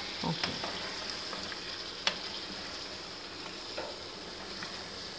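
Goat trotters in masala sizzling steadily in a wok as yogurt is stirred through with a wooden spatula, with a few sharp knocks of the spatula against the pan, the loudest about two seconds in.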